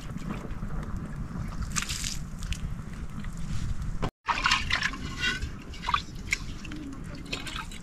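Water trickling and splashing, with scattered drips over a steady low rumble. The sound cuts out completely for a moment about four seconds in.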